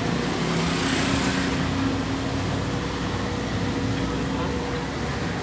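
Street traffic noise: a motor vehicle engine running steadily, with a swell of passing-traffic noise about a second in.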